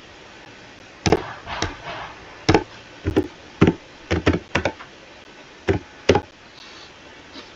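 Computer keyboard keys being typed: about a dozen sharp, irregular key taps over a few seconds.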